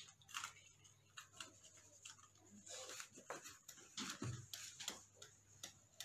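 Near-silent room tone: a steady low hum with faint, irregular clicks and rustles scattered through it.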